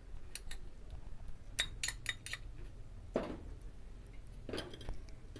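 Steel spoon clinking and tapping against small steel bowls while chilli powder is scooped and tipped onto flour: a few light clinks, with a quick cluster of them about two seconds in and softer knocks after.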